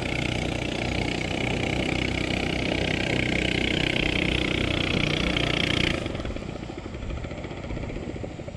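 A small boat engine running steadily, then cutting off suddenly about six seconds in, leaving softer water and wind noise.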